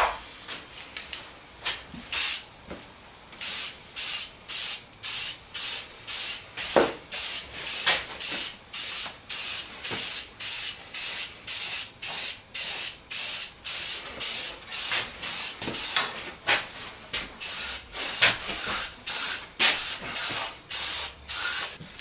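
Aerosol spray paint being sprayed in short hissing bursts, about two a second, with a few light knocks in between.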